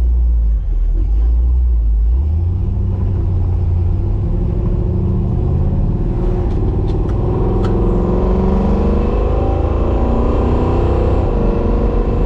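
1967 Chevy Nova's engine, running on a FiTech fuel-injection system, with a heavy low rumble; from about halfway through its pitch climbs steadily as the revs rise.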